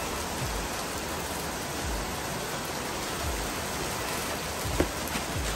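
Steady hiss of rain. Soft low knocks about every second and a half and a single click near the end come from handling a boxed cable roll, its cardboard flaps and plastic wrapping.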